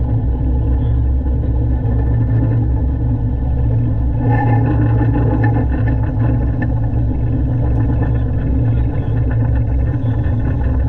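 Air-cooled diesel engine of a 1970s Poclain LC80 excavator running steadily with a low, even drone. The owner says the engine seems to have a misfire or fuelling issue.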